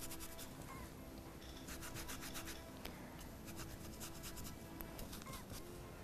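Dry-brush paintbrush scrubbing paint into burlap: a rapid, scratchy rubbing of quick strokes that comes in spells with short pauses.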